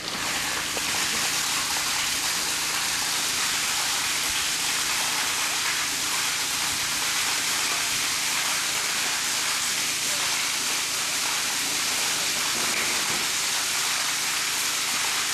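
Pumped water gushing from a hose into a water tank as it begins to fill, a steady splashing rush.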